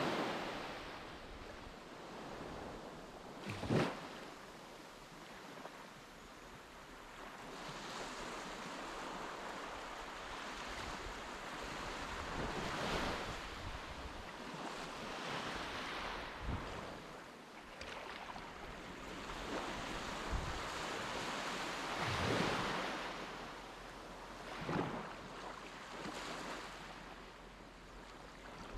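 Sea waves washing onto a beach in slow swells, with wind buffeting the microphone and a sharp gust thump about four seconds in.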